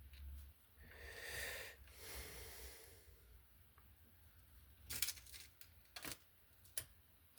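A long breathy exhale, then three sharp clicks, a second or so apart, of small things being handled on a workbench.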